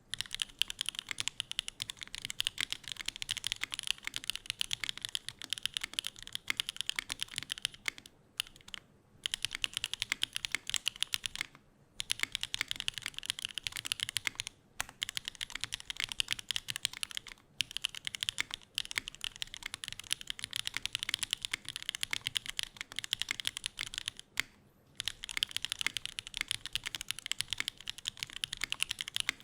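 Fast, continuous typing on a Neo65 mechanical keyboard with stock SWK Jieum V2 switches, GMK Shansui keycaps, an FR4 plate, TX stabilizers and no case foam, with a few brief pauses.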